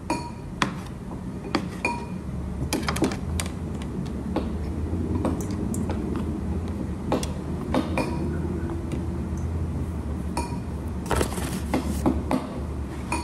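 A cleaver knocking on a plastic cutting board as dough is cut in the first couple of seconds, then scattered sharp knocks and clinks of kitchen utensils. A steady low hum runs underneath.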